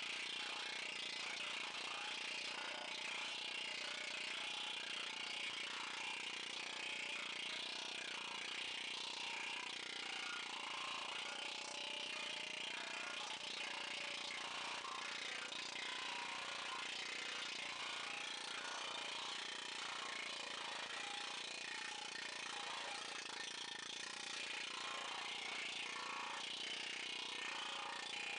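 Planishing hammer running steadily, its dies working over a sheet-metal motorcycle fender panel to smooth out a freshly shrunk area.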